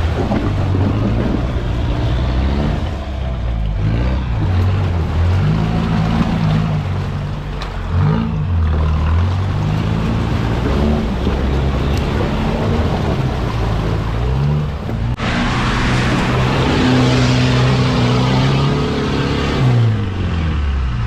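Off-road 4x4 engine revving up and down again and again as it strains to push through a deep, iced-over water pit. From about three-quarters of the way through, a loud rush of churned water and spinning tyres joins the engine for several seconds, then dies away as the vehicle comes to a stop, bogged down.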